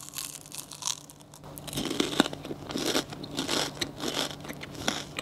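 Close-miked crunching bites and chewing of a crisp puffed-rice oranda dessert filled with yellow-cheese macaron cream, a dense run of sharp crackles that grows busier about two seconds in. A faint steady low hum runs underneath.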